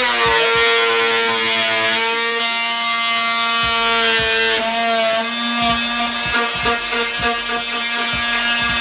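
Oscillating multi-tool (Dremel Multi-Max) switched on and cutting into the bottom of a wooden door jamb to undercut it for the flooring, running with a loud buzzing whine whose pitch shifts slightly as the blade bites.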